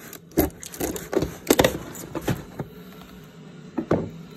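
Cardboard and a boxed package being handled and opened: a string of irregular sharp knocks, taps and scrapes.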